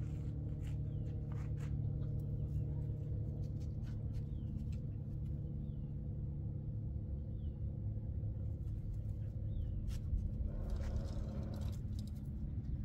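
A steady low hum from a machine, with faint short bird chirps every couple of seconds and a few light clicks.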